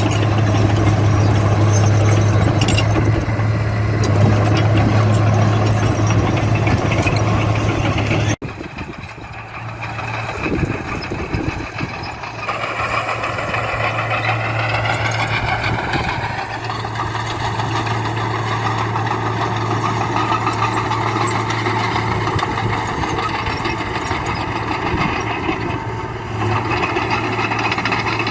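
Diesel engine of heavy earthmoving machinery running steadily under load. Partway through it cuts abruptly to a quieter engine, which then speeds up with a rising whine for a few seconds and runs on steadily at the higher pitch.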